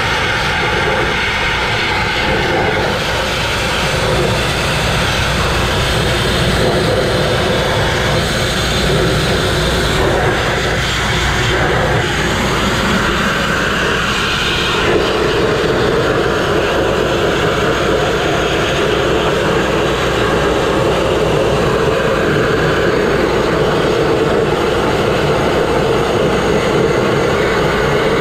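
Abrasive grit blasting: a steady loud roar and hiss of compressed air and grit from the blast nozzle striking steel, stripping rust and paint from a mobile crane. The tone shifts around halfway through as the blast moves across the metal.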